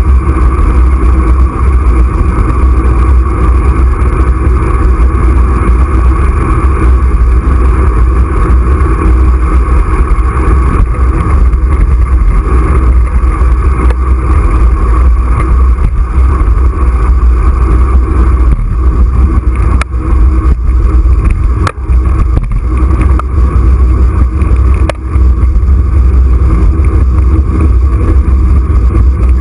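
Steady, loud rush of wind and road noise on a handlebar-mounted camera's microphone while a bicycle rolls along a road. There are a few sharp knocks in the second half, like jolts from bumps in the road.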